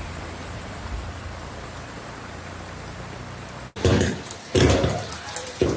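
Rain falling as a steady hiss, then, about two-thirds through, a sudden switch to louder, heavier rain with irregular thumps.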